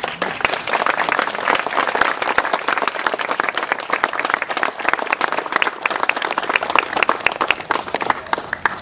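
Crowd applauding: many hands clapping steadily and fast.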